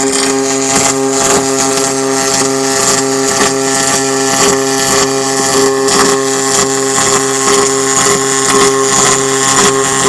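MIG welder running a continuous bead on aluminum: a steady buzzing hum from the arc with a crackling hiss over it, unbroken throughout.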